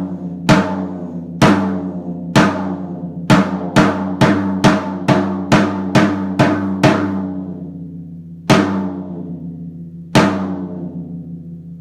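14x14 PDP Concept Birch floor tom with a 7-ply birch shell, struck again and again on its own; each hit rings out with a long pitched sustain. The strikes come about a second apart, quicken to about two a second in the middle, then slow to two last hits that ring out.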